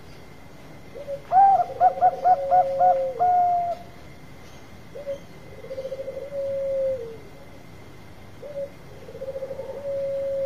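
Zebra dove (Bangkok-strain perkutut) cooing three song phrases. Each is a short opening note, a quick stutter of about half a dozen notes and a long held note that drops off at its end. The first phrase is the loudest.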